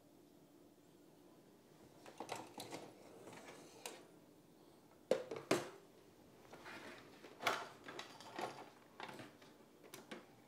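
Plastic-and-metal clicks and knocks of a Ninja Foodi 3-in-1 toaster, grill and panini press being handled as its grill and panini press section is lifted and the press is opened by its handle. Two sharp knocks come about five seconds in.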